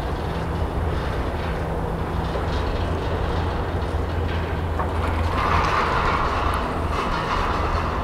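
Doppelmayr gondola lift running: the haul rope and cabin grips roll over a tower's sheave wheels in a steady rumbling clatter. It grows louder for a couple of seconds about five seconds in as a cabin passes over the tower.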